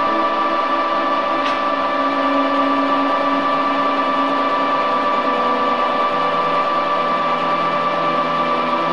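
Metal lathe running, spinning an electric-motor rotor held between the chuck and the tailstock centre: a steady machine whine made of several held tones.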